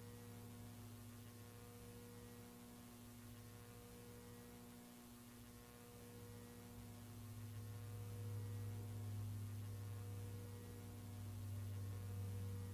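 Faint, steady low electrical hum with a few higher overtones, growing a little louder about halfway through.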